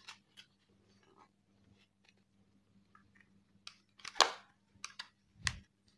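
Hands working a motorcycle helmet's padded inner liner and pressing its snap buttons into place: scattered small clicks and rustles of fabric and plastic. There is a louder scrape about four seconds in and a short knock near the end.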